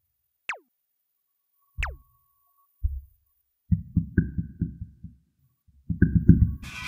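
Cartoon sound effects: two quick falling whistle slides, then soft low thuds, first singly and then in a quick run. A bright burst of ringing comes in just before the end.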